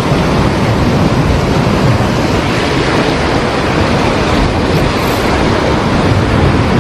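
Loud, steady rush of heavy surf breaking on the shore, with wind rumbling on the microphone.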